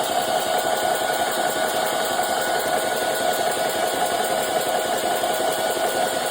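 Electric air compressor running steadily, a dense mechanical noise with a held whine. The owner says it sounds really bad, and nothing is being released from it.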